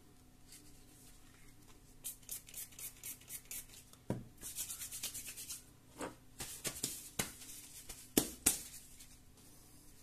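Hands handling objects on a workbench: a run of short rubbing and brushing strokes with several sharp knocks, the loudest two close together near the end. Under it, a faint steady hum from the desktop PC's cooling fan, running just after power-on.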